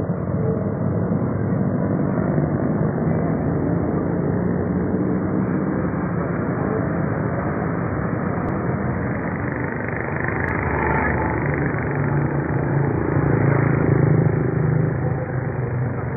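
Steady road-traffic noise from passing vehicle engines, swelling to its loudest about thirteen to fifteen seconds in as a vehicle goes by.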